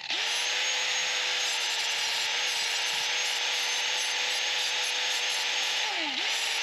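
Handheld corded power tool cutting 1¼-inch steel square tubing. The motor spins up to a steady whine with a loud hiss from the cut over it. About six seconds in, the pitch drops as the trigger is eased off, then it spins straight back up.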